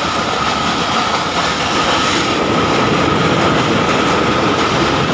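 Passenger train running on the track, heard from on board: a steady loud rail noise with a high steady whine over it.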